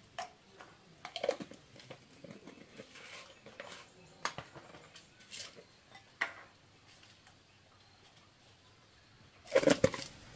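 Light clinks and taps of small seasoning jars, a spoon and chopsticks against a ceramic bowl while seasoning is spooned over minced meat and herbs, scattered at irregular intervals. Near the end comes a louder quick clatter of several knocks.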